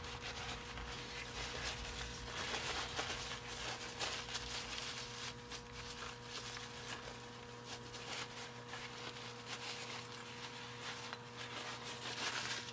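Faint shop room tone: a steady low electrical hum with scattered small clicks and rustles of small parts being handled.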